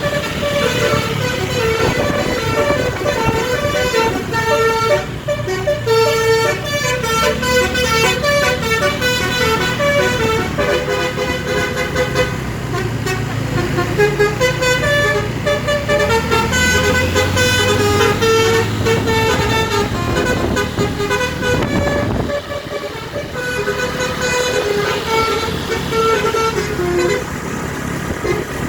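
Bus telolet horn, a V4 horn module driving DAV air horns, playing a melody of short stepped notes, with a brief break about three-quarters of the way through. The bus engine runs underneath.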